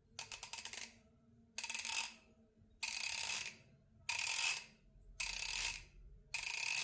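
Craftsman V-series 1/2-inch drive ratchet being swung back and forth by hand, giving six runs of rapid pawl clicks about a second apart. Its mechanism has just been given a few drops of 3-in-1 oil, which is being worked in.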